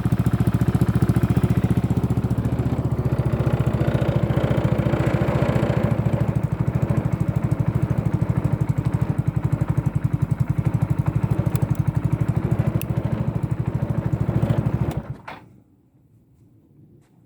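Yamaha Majesty 125 scooter's single-cylinder four-stroke engine idling through a Yoshimura aftermarket exhaust, with a steady, even exhaust pulse. About fifteen seconds in the engine is switched off and stops at once.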